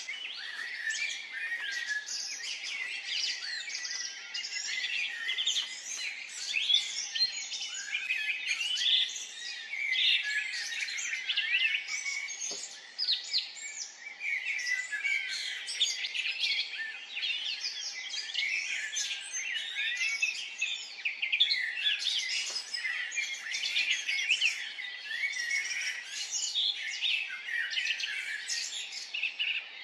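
Dense chorus of many songbirds singing and chirping at once, with overlapping quick high notes and trills that never pause.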